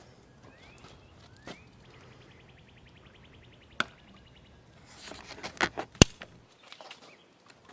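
Diagonal cutters snipping through a corroded car battery cable: a few clicks and crunches, then one sharp snap about six seconds in as the jaws cut through.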